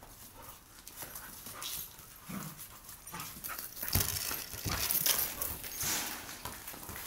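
Two dogs scrambling after a football on a tiled floor: claws clicking and scrabbling on the tiles, panting, and a couple of dull thumps about four seconds in, the loudest moment.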